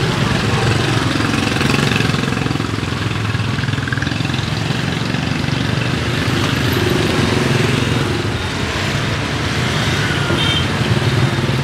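Steady street traffic noise, with motorbike engines running past.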